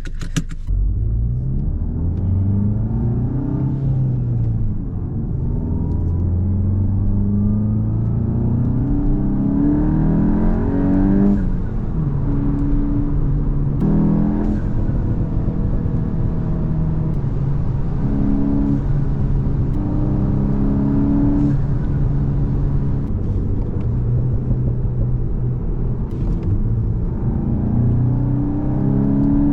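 Turbocharged 2.0-litre four-cylinder engine of a Mk8 VW Golf GTI on an E85 tune, accelerating repeatedly. Its pitch climbs with revs and drops back at each gear change.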